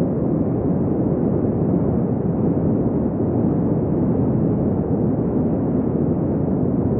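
A steady, muffled rumbling noise with no tones or rhythm in it.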